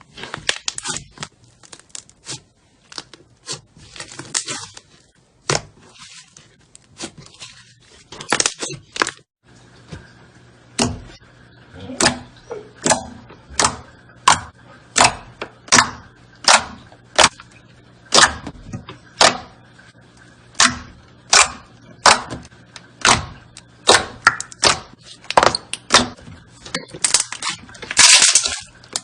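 Slime being handled close to the microphone: a string of sharp pops and crackles. They come irregularly at first, then settle about a third of the way in into a steady pop roughly once a second.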